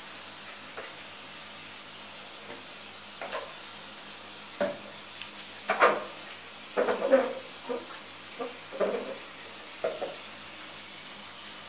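Short, irregular splashes and wet squelches as a poodle's soaked fur is scrubbed and lathered by hand in a plastic basin of water, busiest in the middle of the stretch.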